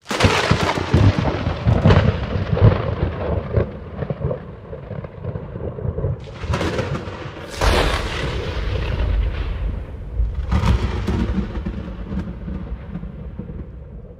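Thunder sound effect: a rolling rumble that starts suddenly, with louder cracks about six to eight seconds in and again around ten seconds, then fading out near the end.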